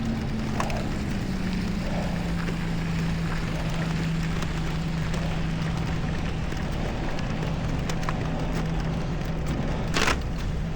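Steady rushing street noise on a bike ride through a snowstorm: wind on the camera microphone and city traffic, with a low steady engine-like hum that drops a little in pitch early on. A single sharp click sounds about ten seconds in.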